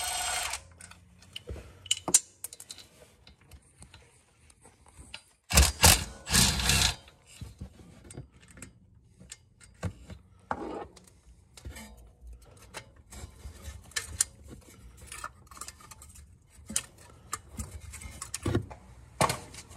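Socket tools working the starter mounting bolts loose on an ATV engine: scattered metal clicks and clinks. There is a brief loud burst at the very start and two louder bursts about six seconds in.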